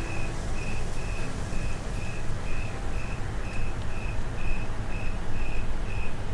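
Cricket chirping in an even rhythm, about two short chirps a second at one steady pitch, over a low steady rumble of outdoor ambience.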